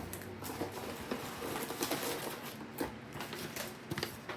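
Soft rustling with scattered light clicks and taps as a box is opened and its contents handled by hand.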